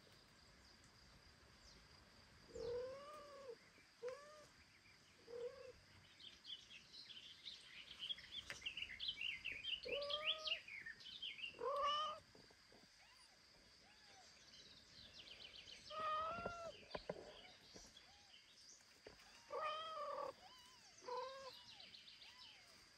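Cats meowing: a run of short, rising-and-falling meows, about nine in all, spaced a second or more apart, some louder than others. Small birds chirp and sing in the background, thickest between the meows in the middle.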